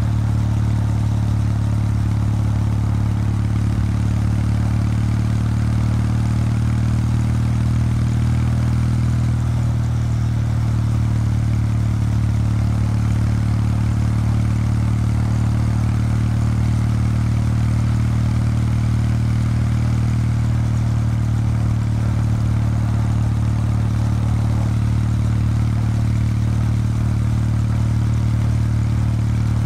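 Exhaust note of a 2019 Kawasaki W800 Street's air-cooled 773 cc parallel-twin engine through its stock exhaust, running steadily while the bike cruises. The note is low and even and holds nearly constant pitch.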